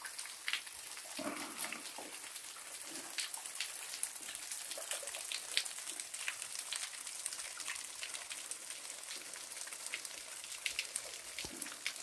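Water from a small waterfall falling and splashing onto rock: a steady hiss full of small drips and spatters.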